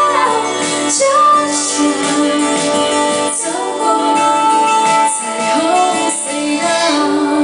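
A woman singing a song into a handheld microphone over instrumental backing music.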